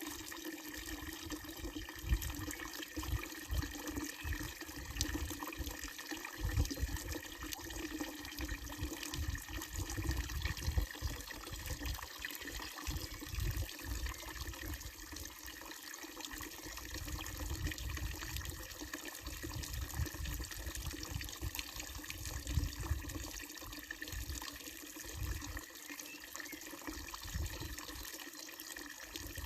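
Water pouring steadily from a wooden trough fountain's spout into its basin, with low rumbling that comes and goes.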